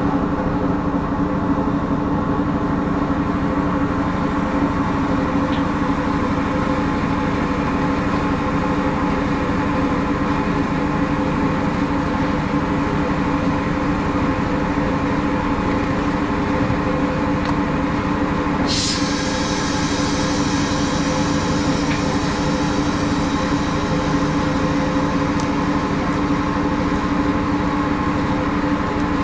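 Plastic can-making machine running with a steady mechanical hum made of several fixed tones, and a single sharp click about two-thirds of the way through.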